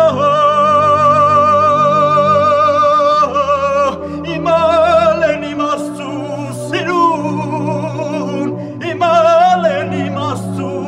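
Background music: a solo voice sings long held notes with a wavering vibrato over a steady low sustained accompaniment. The first note is held for about three seconds.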